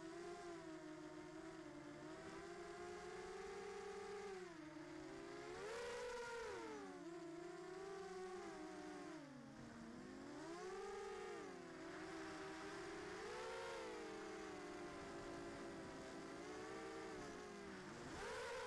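Racing quadcopter's electric motors and propellers whining, heard from the onboard camera. The pitch rises and falls repeatedly with the throttle, climbing sharply near the end.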